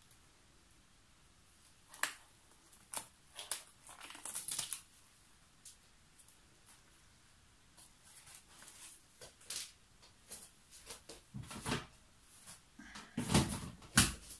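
Paper towel being crumpled and rustled in the hand, with scattered light clicks and knocks from objects on the table. Near the end come a few louder, deeper thumps.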